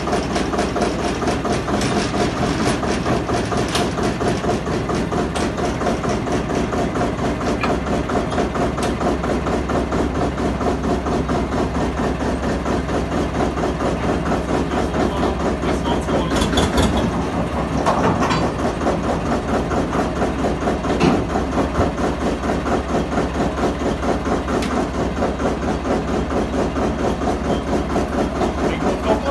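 Gmeinder narrow-gauge locomotive's two-cylinder engine idling with an even, steady chugging beat, briefly louder twice just past the middle.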